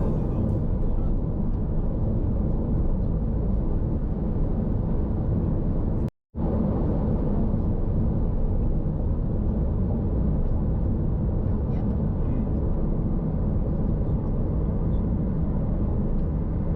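Steady low rumble of a car driving, road and engine noise, broken by a brief silent gap about six seconds in.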